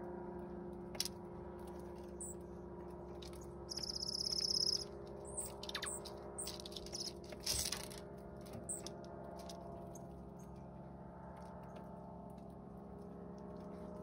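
Dark-eyed junco pecking at black sunflower seeds on a wooden platform feeder: scattered light clicks and taps of seed being picked and cracked. A short high, pulsed trill sounds about four seconds in, growing louder, over a steady low hum.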